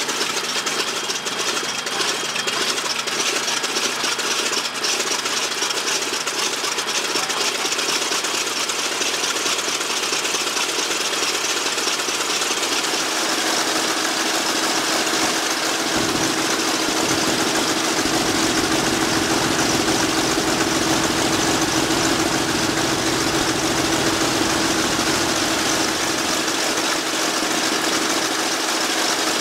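Douglas A-26B Invader's Pratt & Whitney R-2800 radial engine running steadily on its first run in years. A deeper rumble joins about halfway through.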